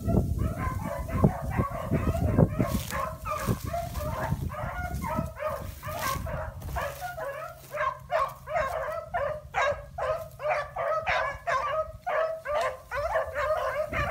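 Dog barking and yipping in a rapid, unbroken run of short high calls, about two to three a second. Rustling through dry grass sounds under the calls in the first half.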